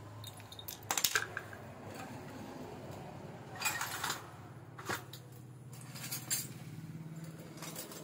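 Metal hand tools clinking and knocking as they are handled: a few sharp clinks and a brief rattle around the middle, over a low steady hum.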